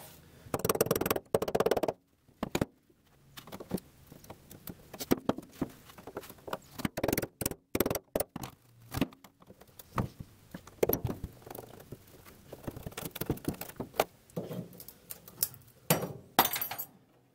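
Metal tool work on a fuel tank: a screwdriver clicks, knocks and scrapes against the tabs of the fuel level sender as it is pried and tapped loose, in short irregular strokes.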